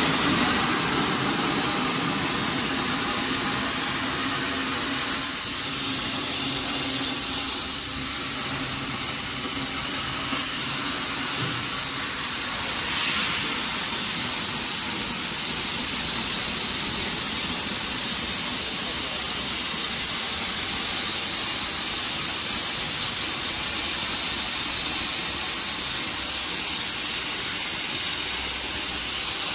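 CNC gantry plasma cutting torch cutting through metal plate: a steady hiss of the plasma arc and its gas jet.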